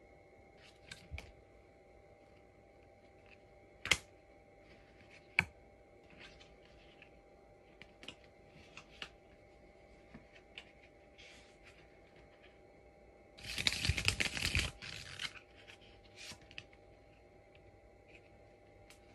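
Playing cards being handled and flourished: a few sharp card snaps and light ticks. About two thirds of the way through comes a quick, loud fluttering run of cards lasting about a second and a half.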